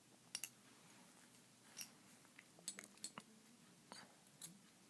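Faint scattered clicks and light taps of small Beyblade parts being handled, about a dozen in all, over near silence.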